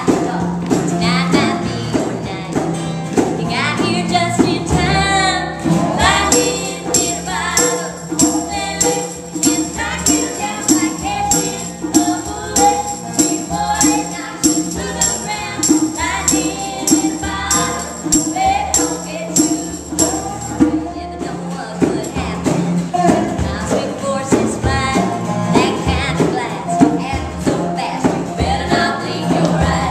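Country song performed by a band, with sung lead vocals, harmony voices and tambourine over the instruments; a steady beat of percussion strokes runs through the middle stretch.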